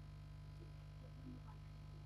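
Near silence apart from a steady low electrical hum, with a couple of faint small ticks.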